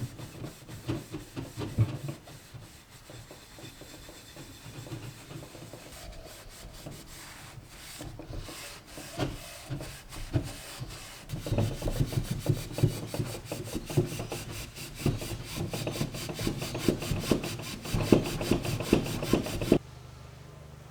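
Paste wax being buffed off a wooden tabletop by hand, with quick back-and-forth rubbing strokes. The strokes become faster and louder about halfway through and stop shortly before the end.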